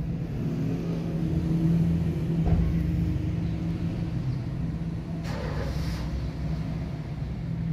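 Engine running with a steady low hum. A short thud comes about two and a half seconds in, and a brief rustling noise a little after five seconds.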